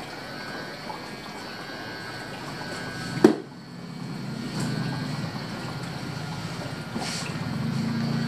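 Barbershop room noise with one sharp click about three seconds in, followed by a steady low hum.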